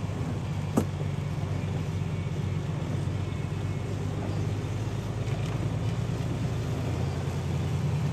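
Semi truck's engine running steadily while driving, heard from inside the cab, with a constant road and rain hiss and one sharp click about a second in.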